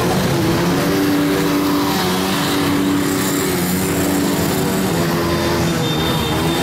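Several horns sounding long held notes that step in pitch, over the dense noise of busy street traffic.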